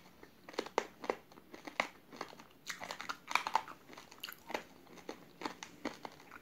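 Mouthful of raw, uncooked rice grains being chewed with the mouth closed, with sharp crunching cracks coming irregularly, several a second.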